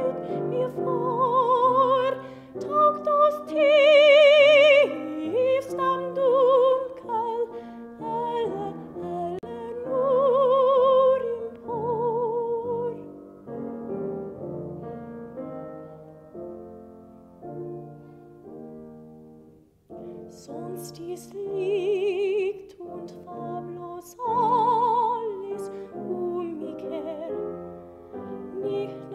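A woman singing classical art song in operatic style with wide vibrato, over piano accompaniment. About halfway through she rests while the piano plays alone, and she comes back in after a short pause.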